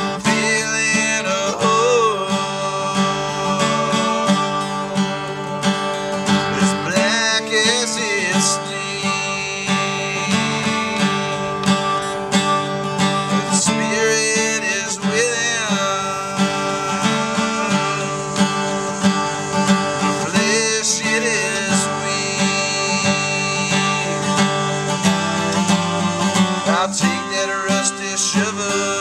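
Acoustic guitar played with steady picking and strumming, with a man singing short phrases every few seconds.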